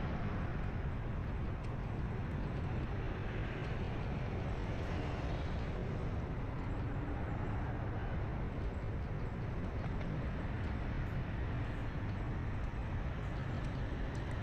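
Steady road and wind rumble from a vehicle travelling along a street, with the sound of other traffic mixed in; no distinct events stand out.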